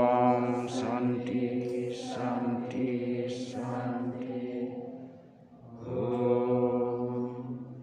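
A group of voices chanting a prayer mantra in unison, in long held tones with hissing consonants, pausing briefly about five seconds in.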